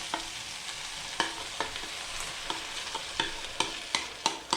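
Noodles and sauce sizzling in a hot frying pan, with a cooking utensil knocking and scraping against the pan as they are stirred. The knocks ring briefly and come more often toward the end.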